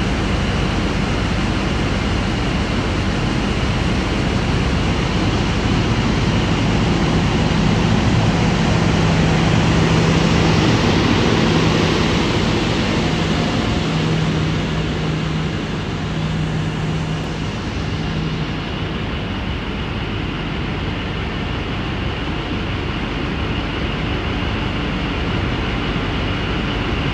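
Caterpillar 240-tonne mining haul truck driving past: a steady diesel drone with tyre and rumble noise, growing louder to a peak around the middle and easing off afterwards.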